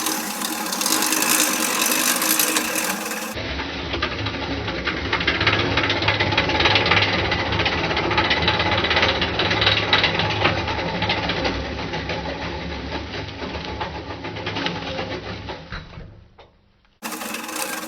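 Manual push reel mower's spinning blades clattering rapidly as it is pushed, cutting through tall grass. The sound breaks off abruptly about three seconds in and picks up again at once, then drops away briefly near the end.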